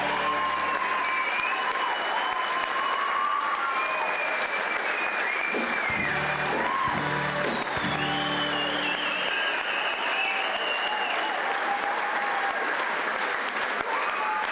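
Audience applauding, with cheers and whistles over it. A low held musical chord sounds near the start and again for a few seconds in the middle.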